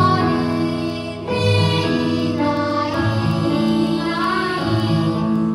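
A small group of children singing a Korean children's song (dongyo) together into microphones, over an instrumental accompaniment, amplified through a hall PA. The voices hold long notes that change pitch about once a second.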